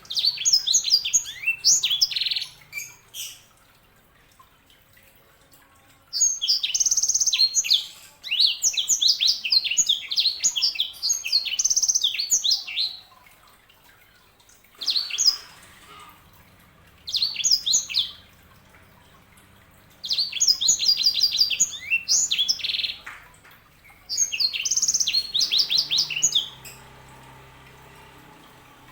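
Yellow-fronted canary (sanger) singing: repeated bursts of rapid, high twittering song phrases, each one to several seconds long, separated by short pauses.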